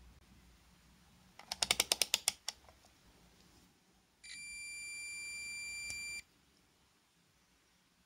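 A UNI-T digital multimeter: a quick run of about ten clicks from its rotary selector switch, then a steady high beep lasting about two seconds from its continuity buzzer as the test probes touch the coax F connector, showing an unbroken connection.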